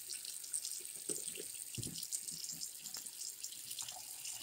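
Kitchen tap running a thin stream into a plastic tub of water in a sink, a steady splashing hiss, with a few soft bumps about a second or two in.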